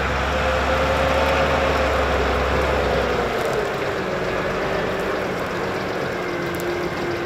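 New Holland methane-powered tractors running while pulling a cultivator. A steady engine note with a clear whine that drops in pitch about halfway through as the low rumble eases off.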